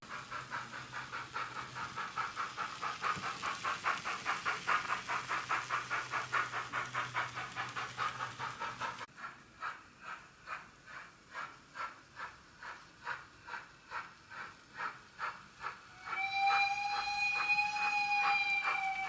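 Sound decoder of a Fleischmann N-scale BR65 steam locomotive model playing steam chuffs through its small speaker. The chuffs are quick at first, then slow to about two a second, and a steam whistle blows near the end.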